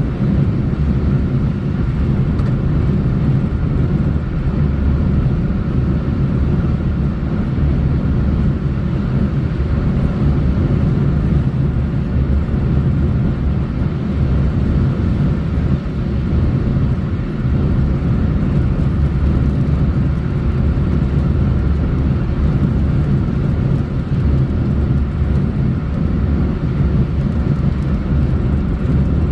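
Steady low rumble of a car travelling along a road: tyre and engine noise, unchanging throughout.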